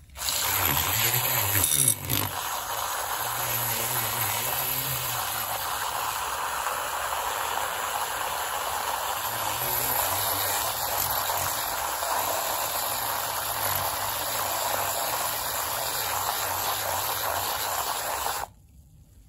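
Battery-powered IKEA handheld milk frother running steadily as its whisk whips a small amount of milk in a glass, a whirring motor with frothy splashing; it switches off suddenly near the end.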